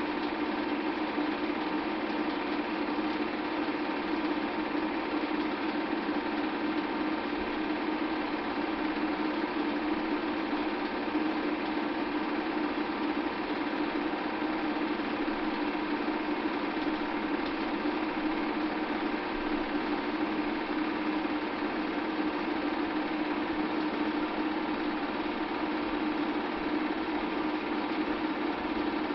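Bell & Howell 8mm film projector running steadily as the film plays: a continuous mechanical whir with a strong low hum.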